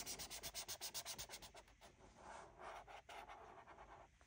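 Felt-tip marker rubbing back and forth on paper in quick colouring strokes, about nine a second, growing fainter and slower after about two seconds.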